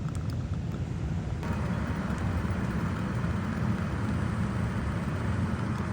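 Running HVAC air-conditioning system: a steady low rumble with an airy hiss that gets louder about a second and a half in.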